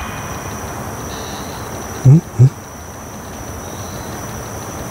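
Night insects trilling in one steady, high, unbroken tone, with fainter short chirps from another insect now and then. About two seconds in, a man's voice makes two brief low sounds, the loudest moment.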